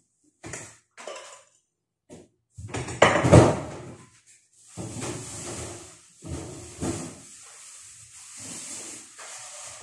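Kitchen handling noises: a few light knocks and clatters of things being moved and set down on the countertop, with one loud knock about three seconds in, then softer clattering and rubbing.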